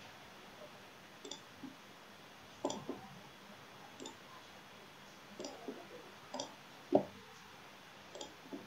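Faint computer mouse button clicks, about half a dozen spaced a second or so apart, with a duller, louder knock about seven seconds in.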